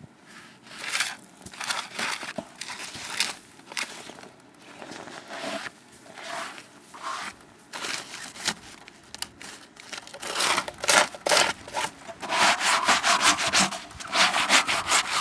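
Footsteps crunching through knee-deep snow, spaced out at first, then louder and quicker from about ten seconds in.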